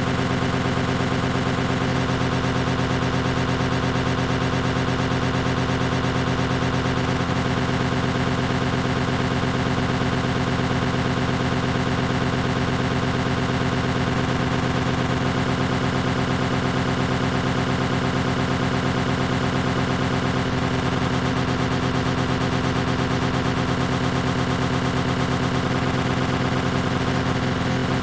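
Greenworks 40V cordless electric lawn mower running steadily, its motor and spinning blade giving a constant hum with several steady tones.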